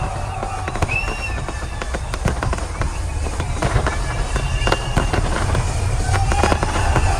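Fireworks display going off: a dense run of bangs and crackles over a steady deep rumble, with a few short whistling tones.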